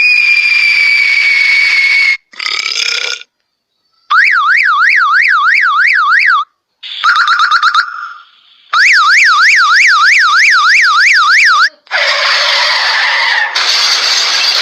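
A string of short comedy sound-effect clips: a falling whistle-like tone, then two stretches of a fast warbling siren at about four wails a second, separated by short noisy effects.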